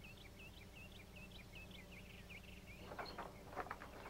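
Songbird chirping faintly, a quick run of short high chirps. About three seconds in, a few footsteps on stone paving.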